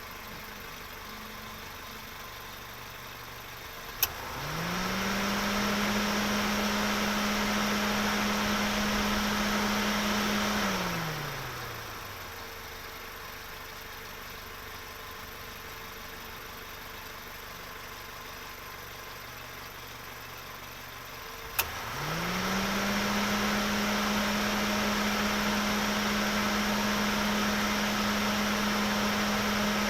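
Car engine running low and quiet, then revving up after a sharp click about four seconds in. It holds a steady, louder pitch for about six seconds, then winds back down. A second click near the last third brings it up again, and it holds steady.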